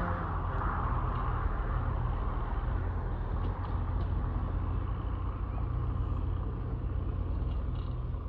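Low, steady rumble of a car that has driven off down the road and out of sight. Its engine note has faded to a dull drone.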